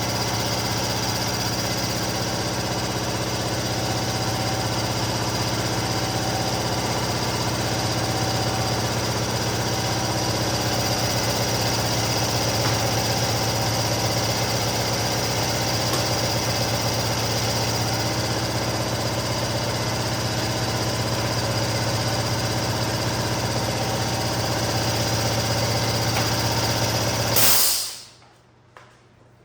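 Neoram 540 roll laminator running with a steady motor hum and hiss, then switched off near the end: after a brief louder swell the sound cuts off suddenly.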